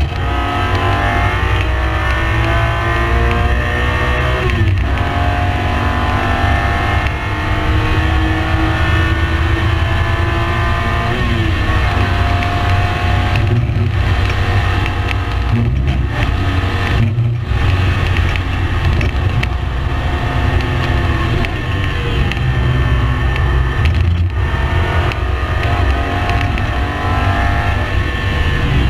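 Race car engine at speed, its pitch rising and falling as it accelerates and slows, with several brief breaks in the sound, over a steady heavy low rumble.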